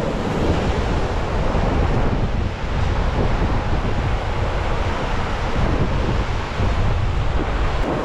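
Sea surf washing onto a sandy beach, with wind buffeting the microphone in a steady low rumble.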